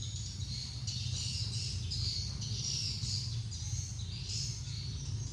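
Birds chirping in repeated short, high trills, over a steady low rumble.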